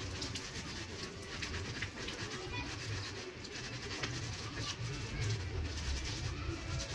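Water from a garden hose running and splashing onto a person's head and the wet concrete ground.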